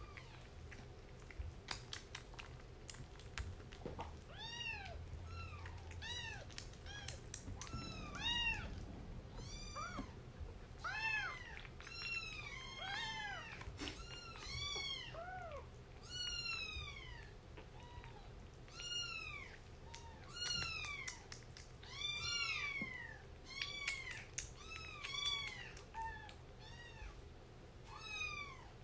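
Kitten mewing over and over: short high mews that rise and fall in pitch, coming about one or two a second from a few seconds in.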